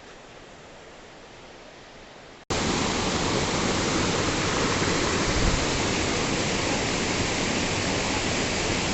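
Rushing water of a waterfall or stream, a steady hiss: faint at first, then after a sudden cut about two and a half seconds in it is much louder and close.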